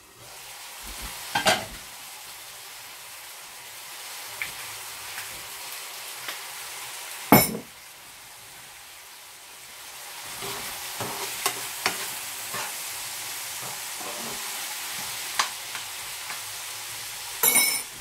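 Diced vegetables frying in oil in a frying pan, sizzling steadily while being stirred with a spoon. The sizzle grows louder about ten seconds in. A few short knocks cut through it, the sharpest about seven seconds in and a short clatter near the end.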